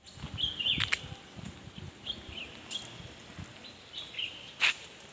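Small birds chirping in short calls, a few at a time, with scattered soft knocks and a couple of brief rustling bursts, the loudest of them near the end.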